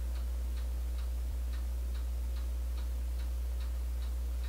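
Faint, even ticking, about four ticks a second, over a steady low hum.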